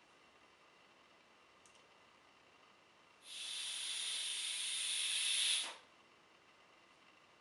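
A steady hiss about two and a half seconds long, starting suddenly about three seconds in, growing slightly louder, then cutting off.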